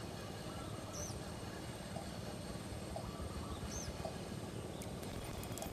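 Steady low outdoor noise with a bird giving a short, high, arched chirp twice, about a second in and again near the end, and a few faint clicks near the end.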